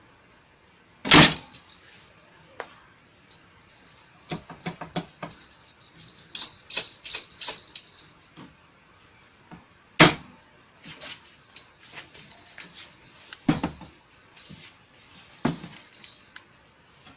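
Handling noises: two sharp knocks, about a second in and again about ten seconds in, among scattered clicks and rattles, with a brief run of light metallic jingling near the middle.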